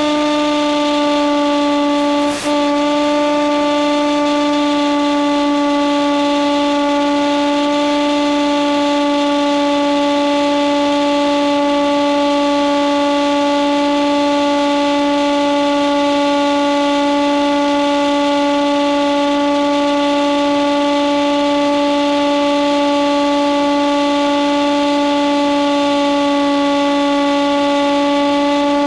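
Electric motor and propeller of a Hawk Sky RC plane running at steady cruise throttle: a loud, constant drone of one pitch with several overtones over a hiss of rushing air. Briefly dips with a click about two and a half seconds in.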